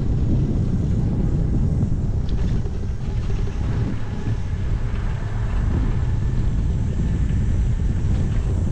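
Wind rumbling over the microphone of a cyclist's point-of-view camera while riding: a dense, steady low rumble.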